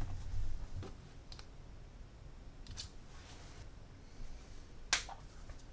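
Faint handling sounds from a laptop on a desk: a soft knock, then a few short, light clicks as its side power button is pressed. The sharpest click comes about five seconds in.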